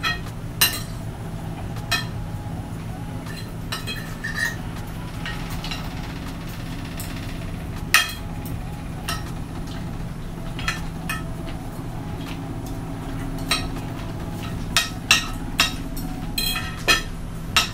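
Spoons and forks clinking and scraping on ceramic plates as two people eat, with sharp clinks every second or two and a quick cluster of them near the end. A steady low hum runs underneath.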